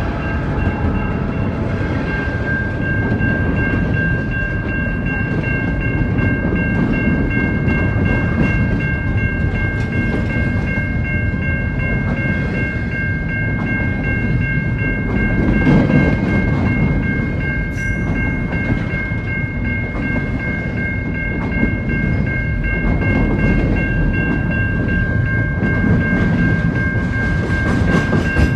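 Double-stack intermodal container freight train rolling past close by: a steady rumble and rattle of railcar wheels on the track, a little louder about halfway through. Steady high-pitched tones run over it.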